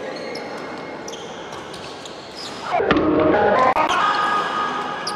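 Badminton rally: rackets striking the shuttlecock in sharp clicks and sneakers squeaking on the court floor. A loud voice, likely a player's call, rises about halfway through.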